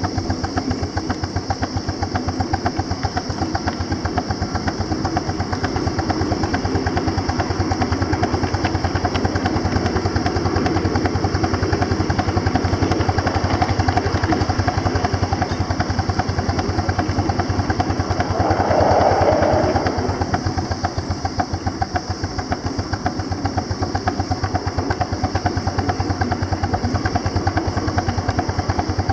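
Miniature live-steam locomotive running, its exhaust beating in rapid, even chuffs. The sound swells briefly about two-thirds of the way through.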